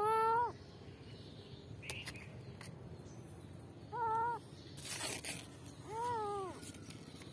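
Kitten meowing: three short, high meows, each rising and falling in pitch, at the start, about four seconds in and about six seconds in. A brief scratchy noise comes just before the last one.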